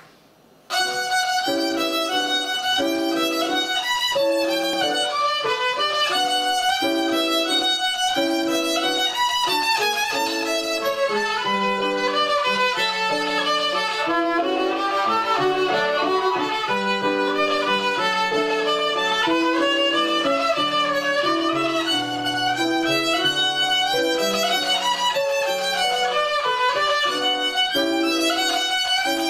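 Violin played solo by a young pupil, bowing a lively run of quickly changing notes that begins within the first second.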